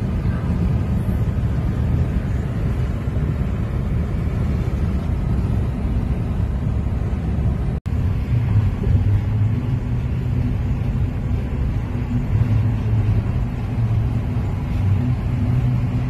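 Steady road noise inside a moving car: tyre and engine rumble from the highway onto a bridge deck. It cuts out for an instant a little before halfway, after which a steadier low hum comes in.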